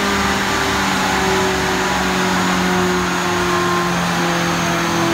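McLaren 675LT's M838T 3.8-litre twin-turbo V8 running steadily on a chassis dynamometer through a custom titanium Secret Weapon exhaust, its note sinking slowly in pitch.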